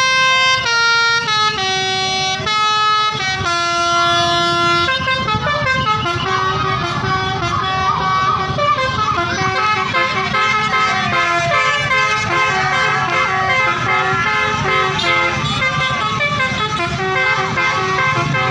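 Tour bus's Basuri telolet horn, a multi-tone musical horn, playing a string of held single notes for about five seconds, then a faster tune of short overlapping notes, over the bus engine running.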